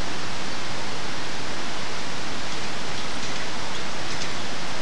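Steady, loud rushing of a fast mountain river below a suspension bridge, an even roar with no breaks.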